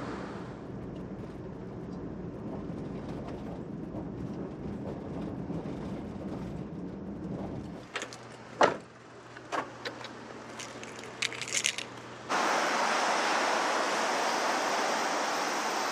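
Kei van driving, a steady rumble of road and engine noise. After about eight seconds the rumble gives way to a low steady hum and a few sharp clicks and knocks. About twelve seconds in, a louder steady rushing noise starts.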